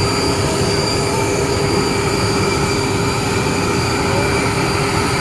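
Airbus A319's auxiliary power unit running, a steady whine over a rumble.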